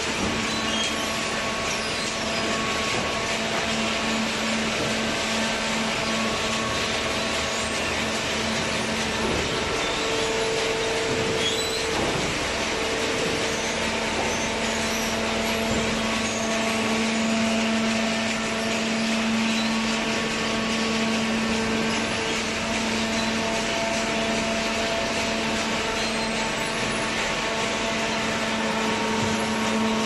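Hydraulic waste-paper baler and its feed conveyor running: a steady machine hum with a constant low whine.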